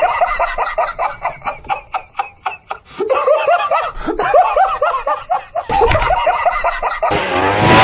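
A person laughing hard in a long fit of rapid ha-ha pulses. A louder, steady sound cuts in shortly before the end.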